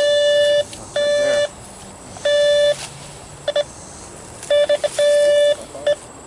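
Electronic beeping from a ground-scanning detector: four half-second beeps at one steady pitch, with quick clusters of short blips in between, as the device registers a reading in the ground, which the crew reads as a cavity.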